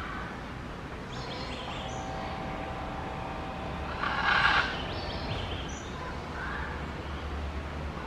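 Forest ambience: brief high chirps and calls from small birds, over a steady low rumble. A short harsh, noisy burst about four seconds in is the loudest sound.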